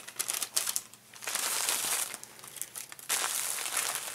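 Small paper bag crinkling and rustling as it is handled and opened, in three spells of about a second each.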